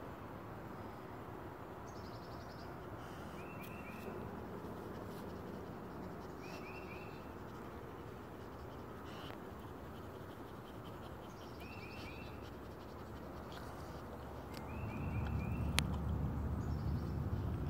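A wild songbird repeats a short phrase of three or four quick notes every few seconds over steady outdoor background noise. From about fifteen seconds in, a low rumble comes up underneath.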